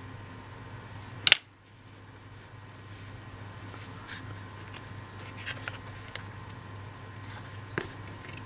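Light taps and clicks of laser-cut MDF model-building pieces being handled and pressed together over a steady low hum, with one sharp click about a second in.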